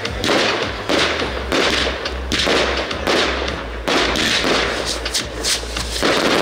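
Aerial fireworks going off overhead: a quick series of bangs, roughly one a second, with crackling in the later part.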